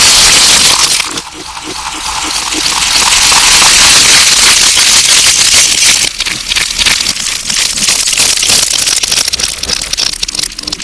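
Slime being handled for ASMR, heavily distorted and loud: a hissing wash that dips about a second in and swells again, then a dense run of small pops and clicks from about six seconds in.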